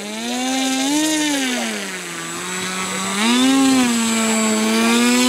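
Radio-controlled foam model airplane's motor and pusher propeller running on the ground, rising in pitch as the throttle opens. The pitch sags about two seconds in, climbs again a little past three seconds and then holds steady.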